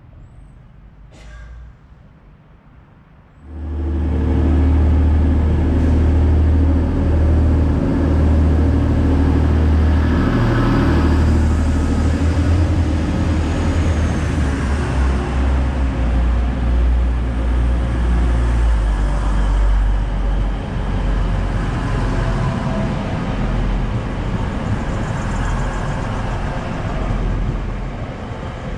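TransPennine Express Class 185 diesel multiple unit pulling out of the platform. Its underfloor Cummins diesel engines start suddenly and loudly about three and a half seconds in, with a deep engine note that shifts in steps, then ease off slowly as the train draws away.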